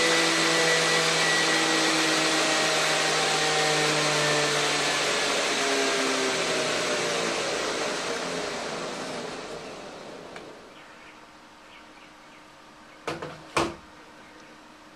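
Large-scale model train locomotive's motor and gearing whirring and winding down as the throttle is turned down: the whine falls steadily in pitch and fades out about ten seconds in. Two sharp clicks follow near the end.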